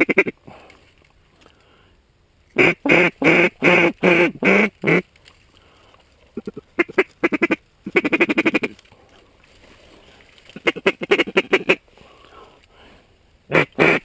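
Mallard duck call blown in loud series of quacks: hail-call sequences of about six quacks, a quick run of feed chatter and single quacks, spaced by short pauses. It is the call a hunter uses to turn a flock of mallards toward the decoys.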